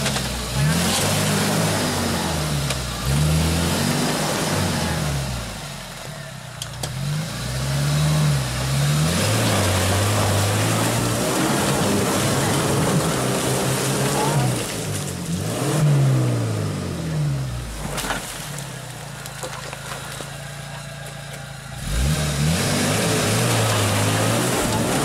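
Suzuki Vitara 4x4 engine revving hard and easing off over and over as the vehicle works up a steep, muddy bank off-road. There are two quieter stretches, then a strong rev again near the end.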